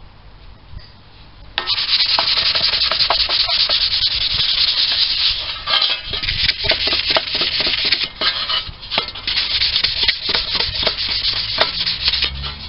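Scotch-Brite abrasive pad scrubbed by hand back and forth over a painted sheet-metal baseplate, rounding off the edges and keying the old paint for primer. It starts about a second and a half in as fast, steady, rasping strokes.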